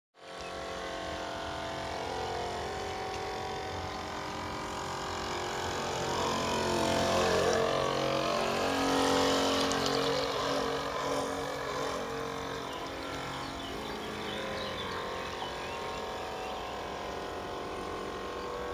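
Radio-controlled model landing craft running on the water under its motor, a steady mechanical hum of several tones with propeller and water noise. It grows louder for a few seconds in the middle as the boat passes close, then settles back.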